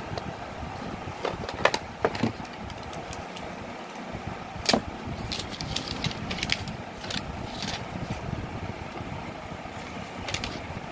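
Hands handling a smartphone and its cardboard box and paper packing: scattered sharp clicks, taps and short rustles as the phone is lifted out of the tray and the paper sheet is moved. They sit over a steady background hum.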